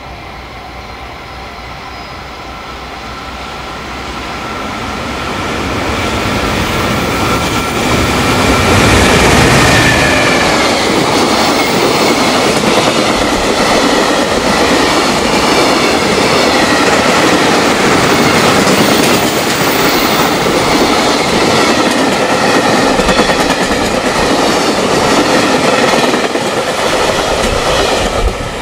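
A long container freight train approaching and passing at speed. The rolling noise of wheels on rails builds over the first several seconds, holds loud and steady as the container wagons go by with a thin high whine over it, and fades near the end.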